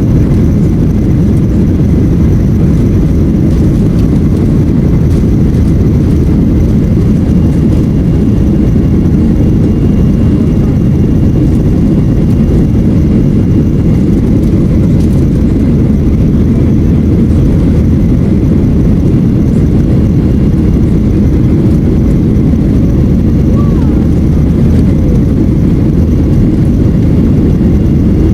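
Steady low rumble of a jet airliner cabin, the engines and airflow heard from inside the plane, holding even throughout.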